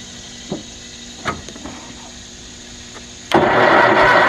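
Kohler 20 HP Magnum engine's electric starter cranking the engine for about two seconds without it catching, the engine turning over on a boosted battery. Before it there are a couple of sharp clicks over a steady low hum.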